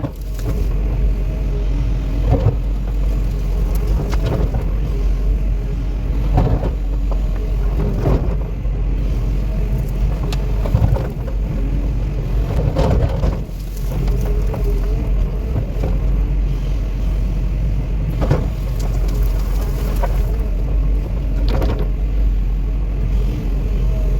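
Cat 316E excavator's diesel engine running steadily while the machine works, with scattered knocks and clunks every few seconds.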